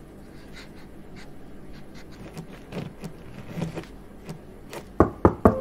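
Pen writing on paper in soft, scratchy strokes. Near the end come three loud, sharp knocks in quick succession.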